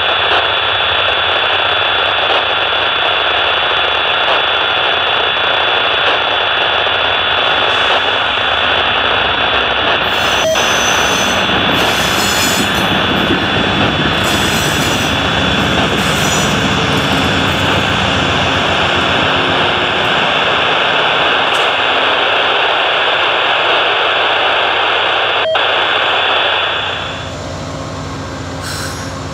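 Amtrak GE P42DC diesel locomotives running past at close range: a loud steady engine and blower roar with a high-pitched whine over it. About 27 seconds in it drops quieter as the locomotives go by and the passenger cars roll past.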